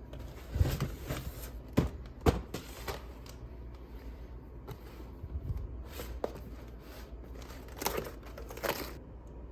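Crinkling and rustling of something being handled, broken by sharp clicks and knocks about half a second in, twice around two seconds, near six seconds, and in a busier stretch near the end.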